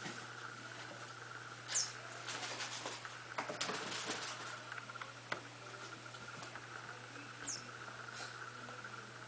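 A squeaky toy mouse being squeezed by Yorkie puppies: two short, high squeaks falling in pitch, one early and one near the end. Between them comes a few seconds of rustling and scuffling as the puppies tussle on a blanket.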